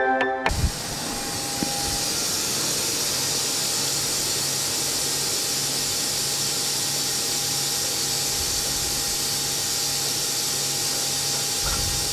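A brief snatch of music, then a steady hiss with a faint low hum from a running CNC milling machine and its flood coolant spraying.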